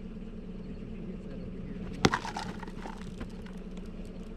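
A single sharp bang about two seconds in, followed by a scatter of small clattering clicks, over the steady hum of an idling engine.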